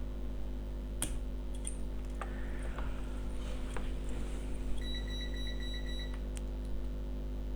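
Scattered small, sharp clicks of cutting pliers snipping through a phone board's thin metal shield. About two-thirds of the way through, a rapid electronic beeping lasts about a second and a half, over a steady electrical hum.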